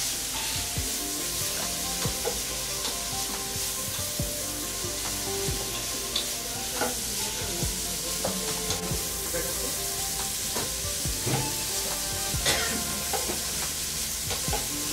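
A pastry filling of onion, pepper and vegetables sizzling as it fries in a pan. It is stirred, with irregular clicks and scrapes of the utensil against the pan.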